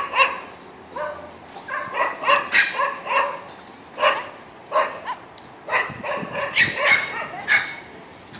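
A dog barking over and over in short barks, about fifteen in all at uneven spacing, sometimes two close together.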